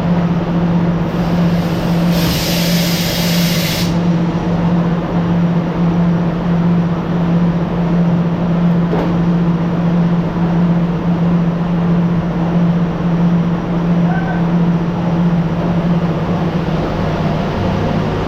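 Factory machinery running with a steady, loud drone and a constant low hum. About two seconds in, a sharp hiss rises over it for roughly two seconds, then stops.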